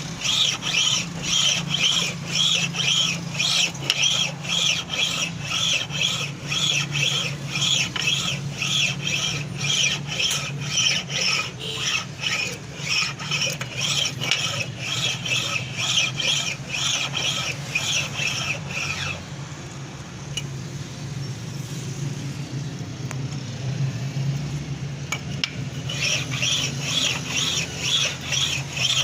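Cylinder head surfacing machine facing a Maruti Baleno cylinder head: the cutter scrapes across the head with a rhythmic high squeal about twice a second, over a steady motor hum. The squealing stops for several seconds past the middle and resumes near the end.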